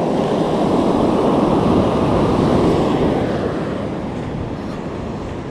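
Loud rushing of surf washing up the beach, mixed with wind on the microphone, easing off after about three seconds.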